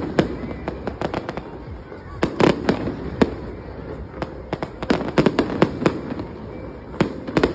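Aerial fireworks going off: rapid clusters of sharp bangs and crackles, loudest a couple of seconds in, around five seconds in, and again near the end.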